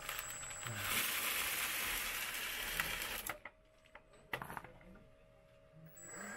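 Gravel load pouring out of a scale RC tipper truck's raised Meiller-Kipper bed onto dirt: a dense rattling, crunching rush of small stones that starts about a second in and cuts off sharply after about two seconds, followed by a few scattered stone clicks. A steady whine from the tipper's hydraulics fades out at the start.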